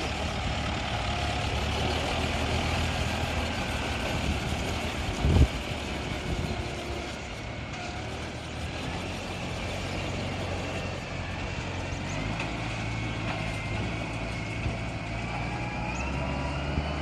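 MR70 tractor engine running steadily with a low drone and mechanical noise, with a single short knock about five seconds in.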